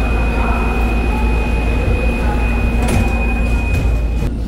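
Manila MRT Line 3 train car: a steady low rumble with a continuous high-pitched beep over it, which cuts off abruptly near the end.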